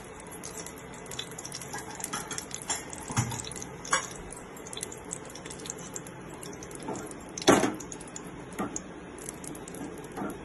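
Desi ghee heating in a pressure cooker over a gas flame: a steady hiss with scattered small pops and crackles, and a sharper snap about seven and a half seconds in.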